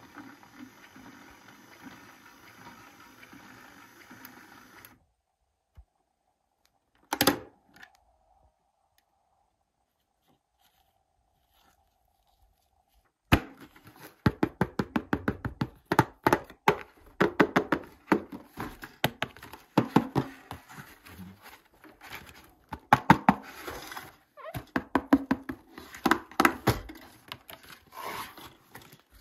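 A toy washing machine's small motor hums steadily for the first few seconds, then one short thump. From about halfway on, a cardboard toy box is handled and opened, with dense, irregular crackling and tapping of cardboard and plastic packaging.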